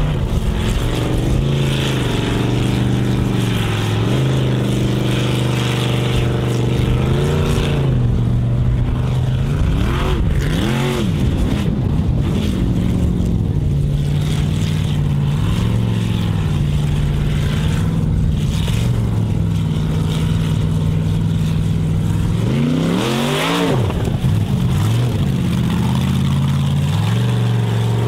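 Formula Offroad competition buggy's engine running hard at high revs throughout, with repeated sharp surges of revs that rise and fall, the biggest about twenty-three seconds in.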